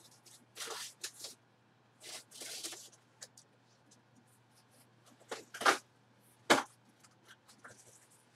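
Several short rustles and scrapes of packaging being handled, the loudest two coming near the end: a longer scrape and then a single sharp knock.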